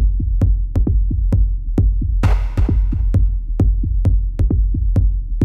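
Background electronic dance music with a steady drum-machine beat, about two beats a second, and a hissing cymbal-like wash about two seconds in.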